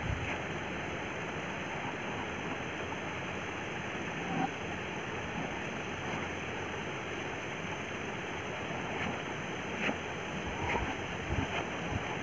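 Steady outdoor background noise by a slow stream, an even hiss, with a few faint brief ticks about four seconds in and again near the end.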